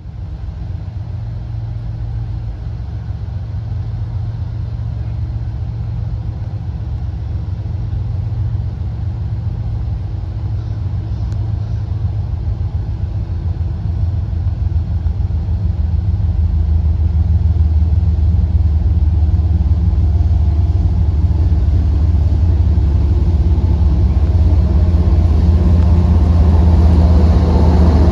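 Diesel locomotives of an approaching CSX freight train, an ES44AH leading an SD40-3: a steady low engine drone that grows gradually louder as the train draws closer.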